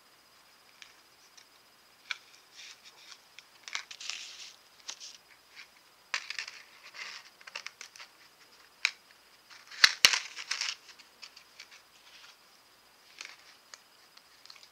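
A small thin metal piece being bent and worked between the fingers for jewelry making, giving scratchy, crinkly handling noises and light clicks. Two sharp clicks come close together near the middle and are the loudest sounds.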